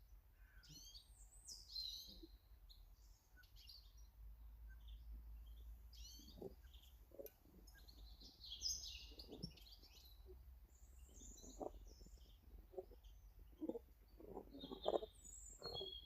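Small garden birds chirping and calling, faint short high notes scattered throughout, with a few soft taps in the second half.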